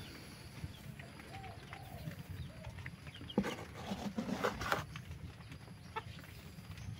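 Chickens clucking softly in short calls. About halfway through there is a spell of scraping and rustling as dry feed is scooped into a plastic bucket.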